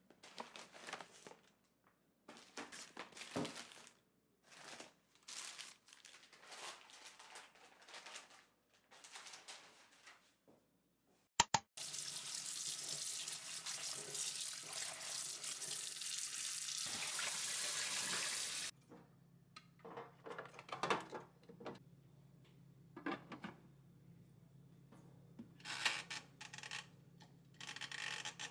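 Scattered rustling of a plastic shopping bag, then after a sharp click a steady rush of tap water running into a sink as kale and cabbage leaves are rinsed in a colander, cutting off suddenly; afterwards scattered light handling noises.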